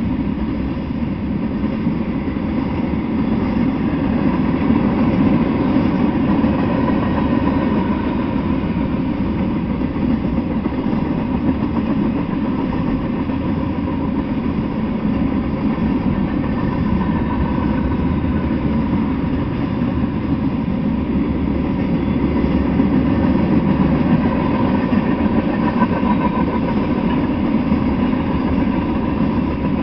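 A mixed freight train of tank cars, covered hoppers and boxcars rolling past, its steel wheels on the rails making a steady, loud rumble with a faint ringing hum above it.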